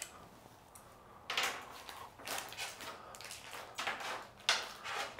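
Small fuel-line fittings and adapters being handled at the fuel pump: about six short bursts of light clatter and rustle with quiet gaps between them.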